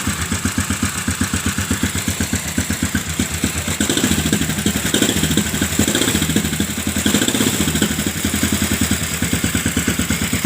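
Custom motorcycle's 400 cc stationary engine running at a steady chugging idle, with a quick even beat of firing pulses. It gets a little louder about four seconds in and again around seven seconds.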